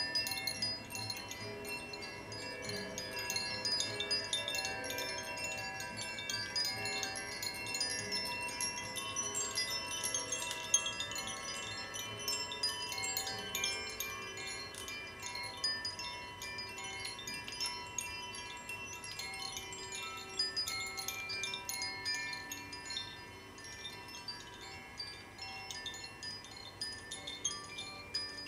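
Tuned wind chimes rung slowly and continuously: a dense shimmer of many high bell-like notes ringing into one another over held tones, easing down a little near the end.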